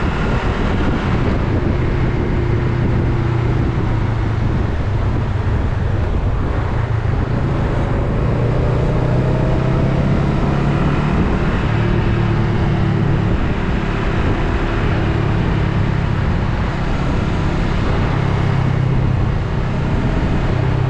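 Honda Rebel 500's parallel-twin engine running steadily under way, its pitch rising and falling a little with the throttle, over a steady rush of wind and road noise.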